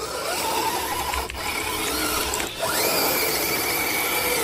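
Electric motor and geared drivetrain of a 1/10-scale RC crawler whining. The pitch holds steady, then jumps sharply higher about two and a half seconds in as the motor speeds up, and stays there.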